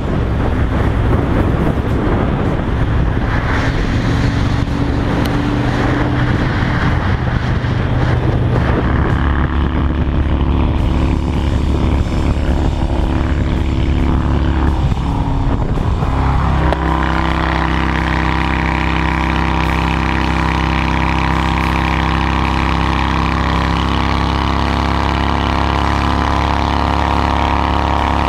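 Honda Shadow 750 V-twin running through a loud, newly made modified exhaust with a fishtail tip. The engine note is steady, and its pitch shifts about sixteen seconds in.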